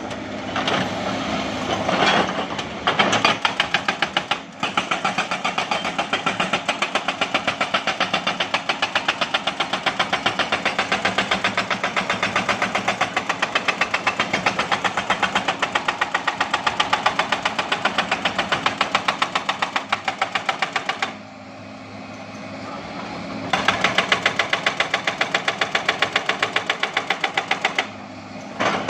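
Hydraulic rock breaker on a Hyundai 210LC-7 excavator hammering rock in rapid, evenly spaced blows over the steady running of the excavator's diesel engine. The hammering stops for about two seconds about three-quarters of the way in, then resumes, and stops again near the end.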